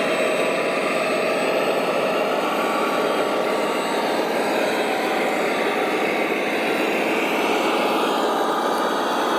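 Radio-controlled scale model truck running, a steady engine-like motor sound that holds an even level without pause.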